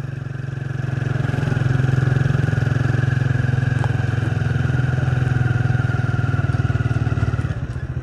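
A vehicle engine running steadily while under way, picking up about a second in and easing off near the end, with a faint steady whine above the engine note.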